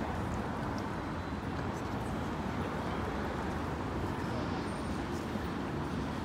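Steady low rumble of urban traffic noise.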